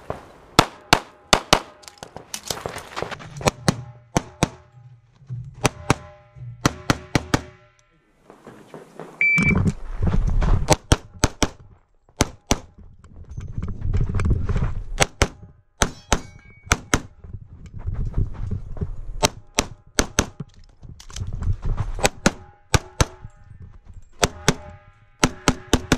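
Semi-automatic pistol fired in rapid strings of shots, each string of two to several shots followed by a short pause, heard close up from the shooter's position. Many shots leave a brief ringing tone, and a low rumble fills some of the pauses.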